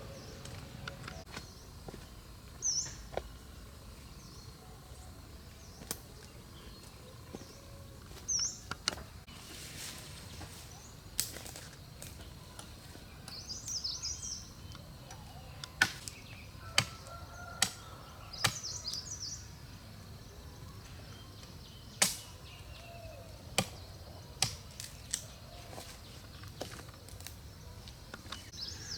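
Scattered sharp knocks and snaps at irregular intervals, a dozen or so, with a few short, high bird chirps between them over a low outdoor hum.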